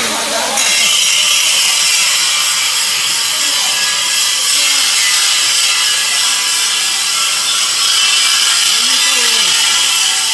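Power grinder running steadily under load, a loud, high-pitched grinding hiss with a whine in it, as it grinds the table of a stone-cutting machine flat. It gets louder about half a second in and then holds steady.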